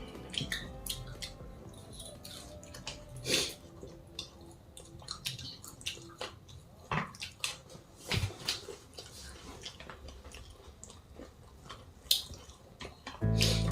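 People chewing and biting into fried chicken lollipops: irregular wet mouth sounds and small crunchy clicks. Loud background music comes in near the end.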